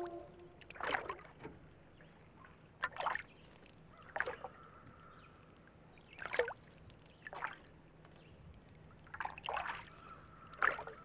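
Faint splashing and trickling water sounds: about eight short splashes at irregular intervals, over a faint low hum.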